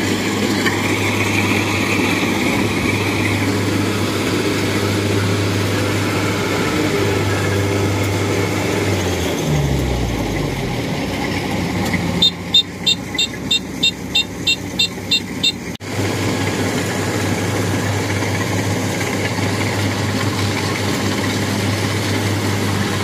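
Kubota DC-70 Plus combine harvester's diesel engine running steadily under load; about nine seconds in the engine hum slides down in pitch. Then, for about three and a half seconds, a run of about ten quick, high beeps takes over before it cuts off sharply and the steady engine running returns.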